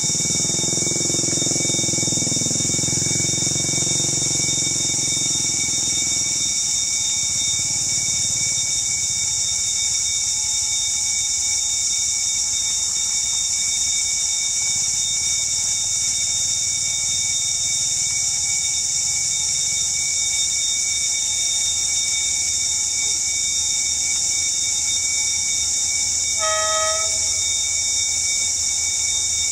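D19E diesel-electric locomotive approaching with its engine running, a strong low rumble for the first six seconds or so that then drops to a quieter drone. It gives one short horn toot near the end. A steady high hiss lies under everything.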